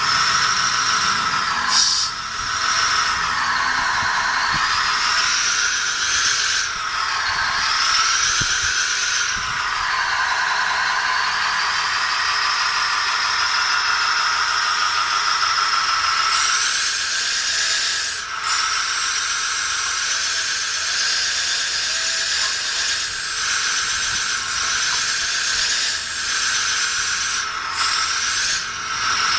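Small electric motors of a 1/16-scale RC excavator whining, the pitch rising and falling as they speed up and slow down. From about halfway a steady high-pitched whine joins in, cutting out briefly a few times.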